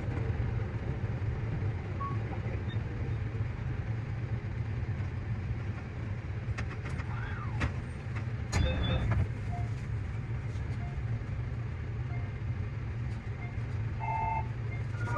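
JR Central 315 series electric train running, a steady low rumble with a sharp clack about eight and a half seconds in and a few brief short tones near the end.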